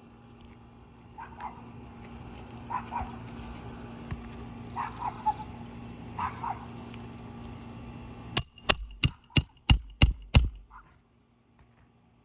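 Roofing hammer striking a roof snake to drive a nail in under a lifted asphalt shingle: seven quick, sharp blows, about three a second, starting about eight seconds in.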